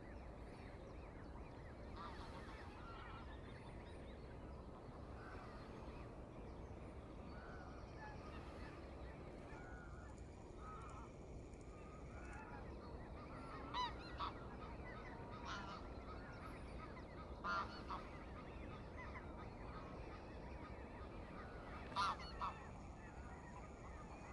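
Flock of greylag geese honking, calling off and on throughout, with a few louder double honks in the second half.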